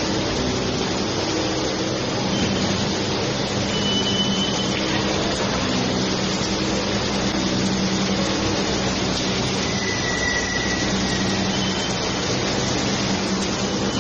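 Mini noodle machine running steadily: a constant motor hum over an even mechanical noise.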